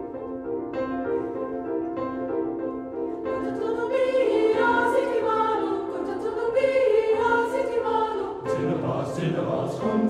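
Choral music, a choir singing over a steady held low note, growing fuller a few seconds in.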